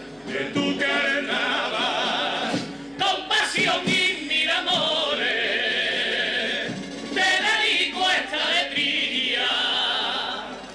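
Male Cádiz carnival group singing in chorus, several voices together holding long notes with vibrato.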